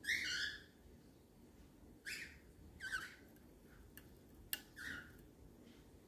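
Cockatiel giving four short, harsh squawks, the loudest at the very start. A single sharp click comes between the last two.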